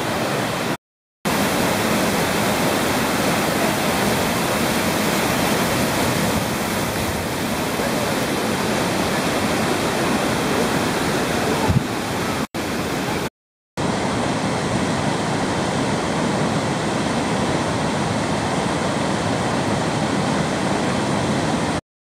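Steady rushing of Cheonjiyeon Waterfall, water falling down a rock face into a pool, with no change in its sound. It drops out briefly three or four times where the clips are joined, and a single short knock is heard about halfway through.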